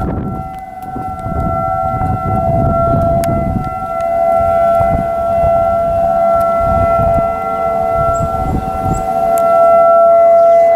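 Outdoor tornado warning siren sounding a steady wail: a two-note chord that holds its pitch, growing louder near the end, over a low rumbling noise.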